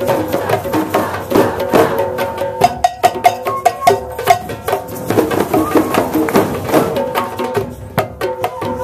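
A large drum circle: many hand drums and percussion instruments struck together in a dense, steady rhythm, with some ringing pitched tones over the beat.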